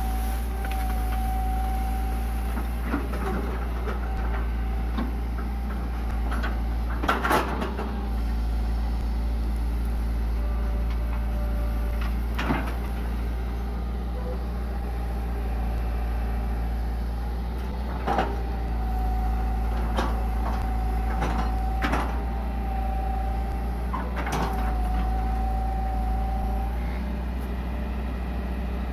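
Hitachi EX120 long-arm excavator working: its diesel engine running steadily under a thin whine that comes and goes, with sharp knocks and clanks every few seconds as the boom and bucket move, the loudest cluster about seven seconds in.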